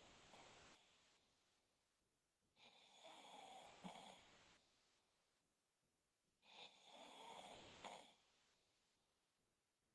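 A man snoring in his sleep: faint, rasping breaths about two seconds long, coming every three to four seconds. One trails off just after the start, then two more follow.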